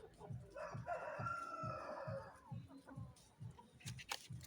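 A rooster crowing once, a long call of about a second and a half starting about half a second in. Beneath it is a faint low pulsing about three times a second.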